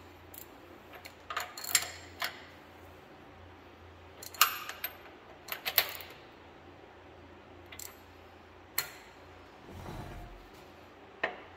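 Scattered metallic clinks and clanks of a ratchet, socket and extension working the connecting-rod cap nuts in a two-cylinder tractor crankcase. Near the end there is a brief low rumble as the flywheel is turned by hand.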